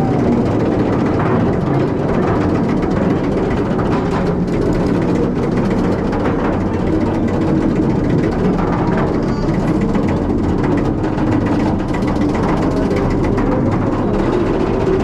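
Roller coaster train climbing a steep lift hill: steady, dense mechanical clatter from the lift mechanism and the train.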